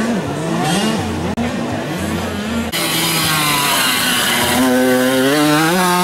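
Small 65cc two-stroke motocross bike engines revving up and down, more than one at once. About two and a half seconds in the sound changes abruptly to a steadier engine note that climbs in pitch toward the end as a bike accelerates.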